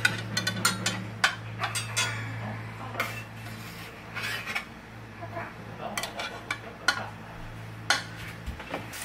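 A metal slotted spatula clicks and scrapes against a frying pan as raw hamburger patties are set down in the oil. There are many short knocks throughout, over a steady low hum.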